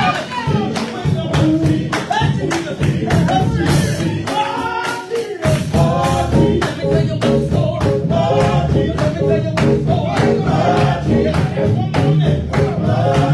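Gospel group singing with a band and a steady percussion beat. The bass drops out for about a second midway, then comes back in.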